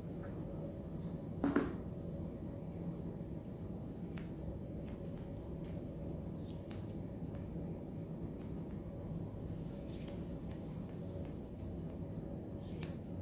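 Curved grooming scissors snipping a maltipoo's curly coat around the head and face: scattered, irregular crisp snips over a steady low room hum, with one short louder bump about a second and a half in.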